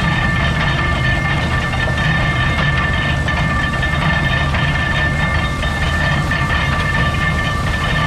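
Belt-driven Oliver stationary baler running under power while baling straw: a steady, rhythmic mechanical clatter with a steady high-pitched whine over it.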